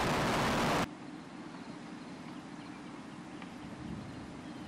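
Falcon 9 liftoff roar from its nine Merlin first-stage engines, heard from a distance, for about the first second. It cuts off abruptly and leaves a much quieter steady low hum.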